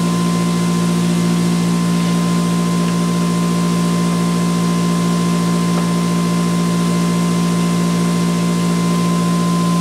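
ReGenX generator prototype and its prime mover spinning at about 3450 RPM on no load, a steady machine hum with a constant higher tone above it.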